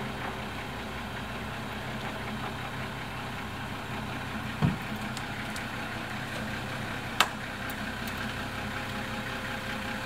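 An engine idling steadily, with a single low thump about halfway through and a sharp click a couple of seconds later.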